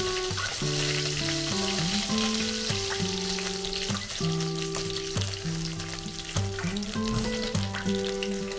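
Food sizzling steadily as it fries in hot oil in a pan, under background music of held melodic notes and a bass line.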